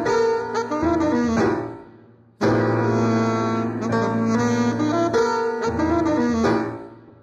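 Live jazz duo of saxophone and piano, recorded from cassette: the sax plays pitched phrases over piano, the music dies away about two seconds in, starts again abruptly, and fades once more near the end.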